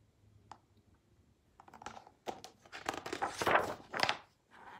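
Page of a hardcover picture book being turned: paper rustling and crinkling in a run of short scrapes, starting about a second and a half in and ending near the end.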